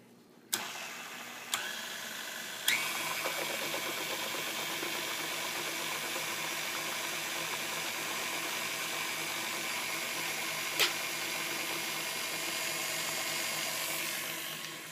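KitchenAid stand mixer's motor running with hot soapy water churning in its steel bowl. It starts about half a second in and gets louder after a click about three seconds in, then runs steadily with a motor whine until it winds down near the end, with a few sharp clicks along the way.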